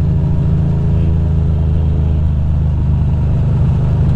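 Ducati Monster's L-twin engine running at low, steady revs, a low drone with no revving.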